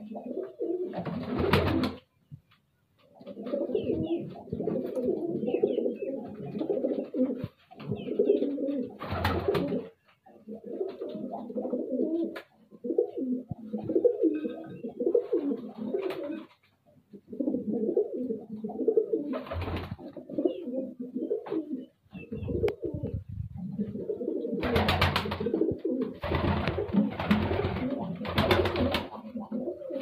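Domestic pigeons cooing, phrase after phrase with only short breaks. Several louder, fuller bursts stand out, with a cluster of them near the end.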